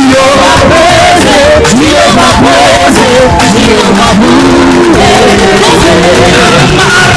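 Live gospel praise music: singing voices carrying a wavering melody over a full band with steady percussion.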